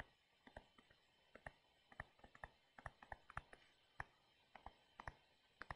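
Faint, irregular clicks, a few per second, of a stylus tip tapping on a tablet screen while handwriting.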